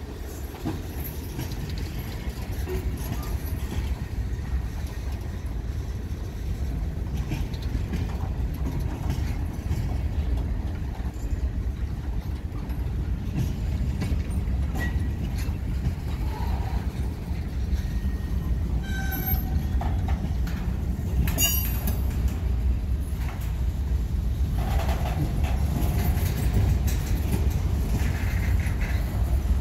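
Freight train rolling past: the steady low rumble of a Norfolk Southern manifest's cars and locomotives, growing slightly louder, with a couple of brief sharp metallic sounds about two-thirds of the way through.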